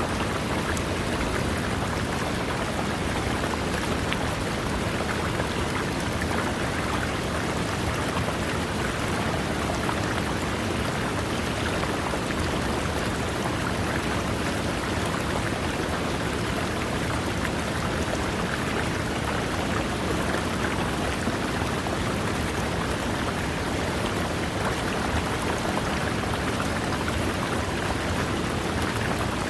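River water running over rocks: a steady, unbroken rushing and splashing with no pauses.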